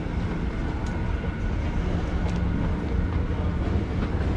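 Moving escalator running with a steady low rumble and a faint hum, over the general background noise of a large terminal hall.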